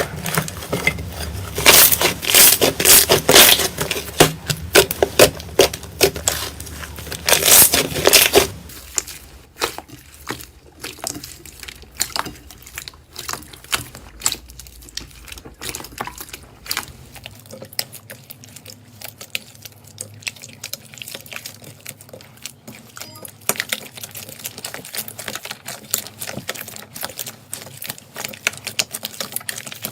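Slime being handled and squeezed, crackling and clicking. The crackle is dense and loud for about the first eight seconds, then drops to a quieter run of scattered clicks and pops.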